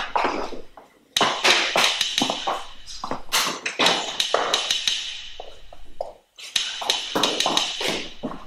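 Quick, sharp footsteps of someone running across a tiled floor, broken by two short pauses, about a second in and about six seconds in.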